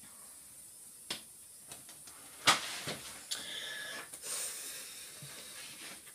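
Handling noise as the recording phone is picked up and moved: a few sharp knocks, the loudest about two and a half seconds in, then a couple of seconds of rustling and rubbing.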